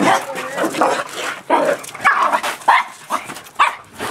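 Dogs barking repeatedly in excited play, about two barks a second.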